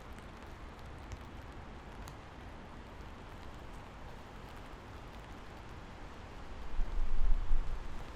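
Steady rain falling, an even hiss with scattered drips. Near the end a deep low rumble swells up for about a second and fades.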